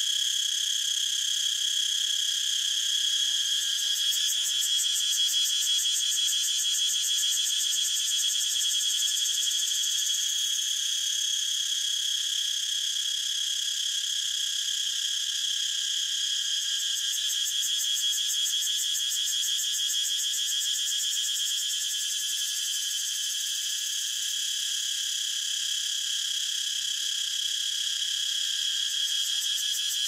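Cicada singing: a continuous, steady, high-pitched buzz.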